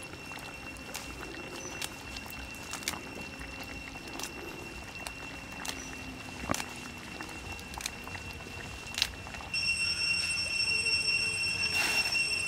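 Stew simmering in a wok over a wood fire, with scattered pops and crackles. Under it runs a steady high-pitched whine that grows louder and fuller about ten seconds in.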